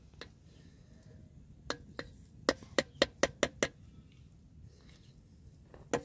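A metal spoon knocking against a metal cooking pot about eight times, in sharp ringing taps that come closer together, shaking lumps of sheep butter off the spoon.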